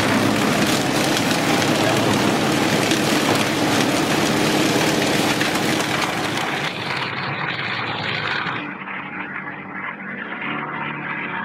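Wood chipper running under load: a steady engine hum under a dense grinding, shredding noise. About seven seconds in the sound turns duller, and near nine seconds it drops to a quieter, muffled machine running.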